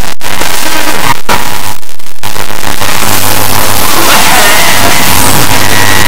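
Loud, noisy, garbled television broadcast audio with music under heavy static, cutting out briefly three times in the first two and a half seconds: a glitching capture of a digital TV signal.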